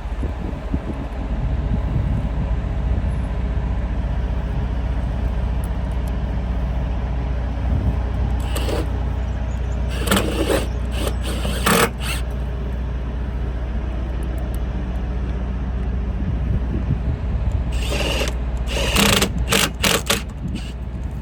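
Power driver running in short bursts, driving self-tapping tech screws with 5/16 hex heads into a metal frame. There is a brief burst about nine seconds in, a spell of several bursts around ten to twelve seconds, and another spell near the end, over a steady low rumble.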